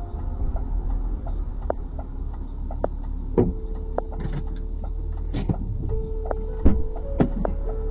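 Inside the cabin of a BMW E46 320i driving on a highway: a steady low road and engine rumble with scattered sharp knocks and clicks, the loudest about three and a half seconds in and again near seven seconds. Faint held music tones sit underneath.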